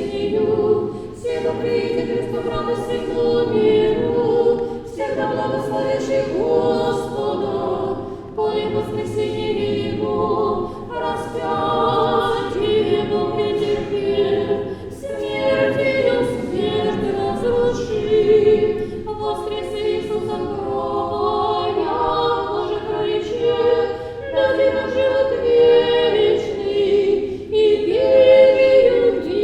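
Orthodox church choir singing unaccompanied liturgical chant, in phrases broken by short pauses every few seconds.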